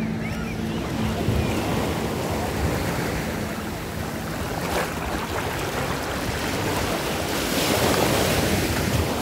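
Sea water sloshing and small waves washing around, with wind on the microphone. A low steady hum fades out in the first few seconds, and a wave surges louder near the end.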